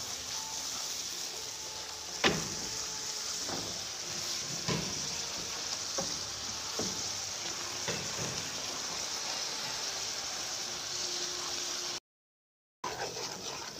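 Thick yellow paste sizzling in a frying pan with a steady hiss, while a wooden spatula stirs it and knocks against the pan about once a second. The sound cuts out for under a second near the end.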